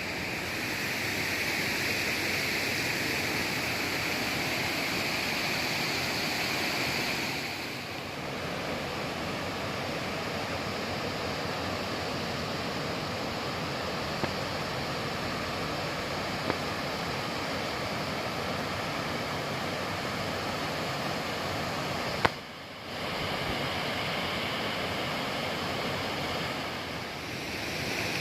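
Steady rush of a creek waterfall, water pouring and splashing. The rush changes abruptly a few times, with a short click and a brief drop about 22 seconds in.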